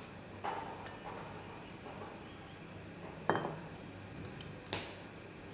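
A few light glass chinks as a glass measuring cylinder, funnel and glass reagent bottle of dilute hydrochloric acid are handled and the bottle set down on a tiled bench. The sharpest chink comes about three seconds in, and another about a second and a half later.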